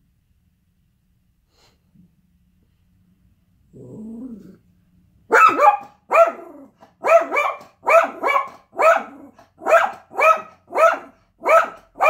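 Yorkshire terrier growling briefly about four seconds in, then barking again and again, about ten sharp barks in under seven seconds. The dog is alarm-barking at a delivery truck.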